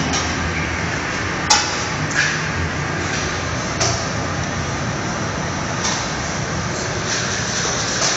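Chain-driven conveyor of an LED aging test line running with a steady mechanical noise, broken by a few sharp clacks.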